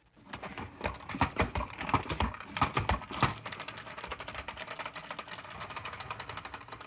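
Push-down pump salad spinner being pressed and spinning, its mechanism making a dense run of fast clicks. The clicking is louder and uneven in the first half, then settles into a steadier, quieter rapid clicking.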